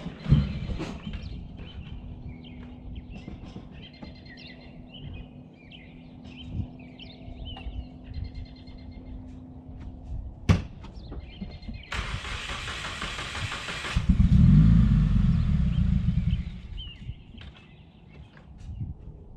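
2017 Subaru WRX's turbocharged flat-four engine running at an uneven idle, its low rumble wavering, with birds chirping. About twelve seconds in there is a two-second hiss, then the engine grows louder for a couple of seconds. The owner takes the rough, choking idle for a boost or vacuum leak after fitting a new charge pipe and top-mount intercooler.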